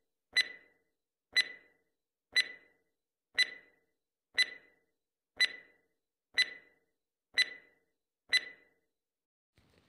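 Countdown-timer sound effect ticking once a second, nine short sharp ticks that stop about a second before the end.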